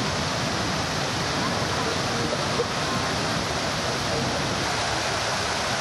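Steady rush and splash of a large multi-tiered fountain: many water jets arcing and cascading into its basin.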